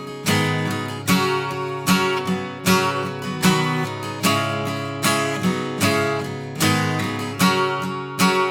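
Acoustic guitar strumming chords in a steady rhythm, with an accented strum a little more than once a second and no vocal.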